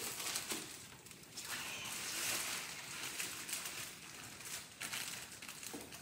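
Thin plastic packaging bag crinkling and rustling as it is worked off a boxed item by hand, loudest about two seconds in.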